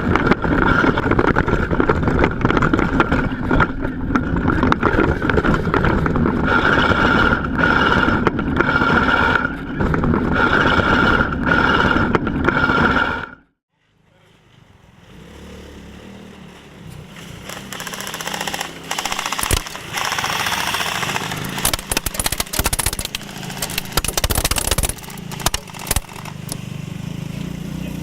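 The airsoft buggy's engine running steadily, with a high whine that swells several times. It cuts off suddenly about halfway through, and a quieter mix of engine sound and sharp clattering clicks fades back in.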